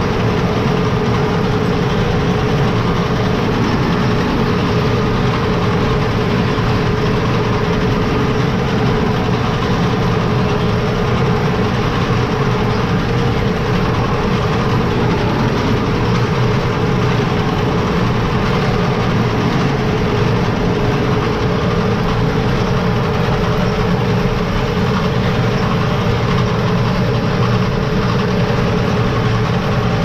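Case IH Farmall 95C tractor's diesel engine running steadily under load while driving a New Holland round baler through the PTO, heard from inside the cab, with a constant whine from the driveline.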